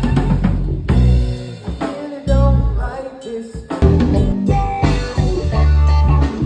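A band playing with drum kit, guitar and singing; the music cuts out abruptly and starts again several times.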